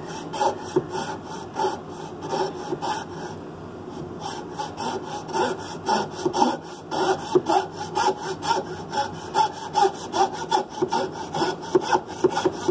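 Coping saw cutting through a pine derby block by hand, in quick, even back-and-forth strokes, with a short let-up about three to four seconds in.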